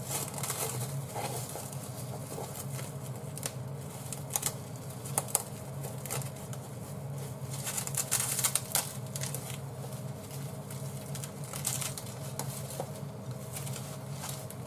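Plastic cling film crinkling and crackling as it is peeled off a plastic food tray, in many small irregular ticks that get busier about eight seconds in. A steady low hum runs underneath.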